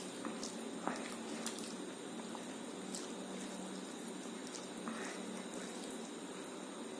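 Eating sounds: soft, scattered wet clicks and smacks of someone chewing a mouthful of rice and egg curry, over a steady hiss.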